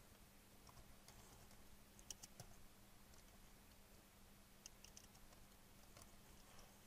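Faint keystrokes on a computer keyboard, short clicks in small scattered clusters, over a faint steady low hum.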